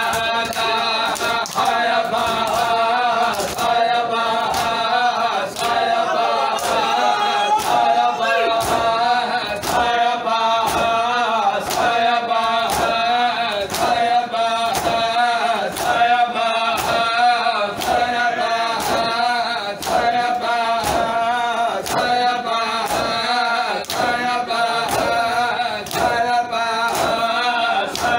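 Men chanting a Punjabi noha in chorus, led by a reciter, over a steady beat of matam: open-handed slaps on bare chests struck together, a little over one a second.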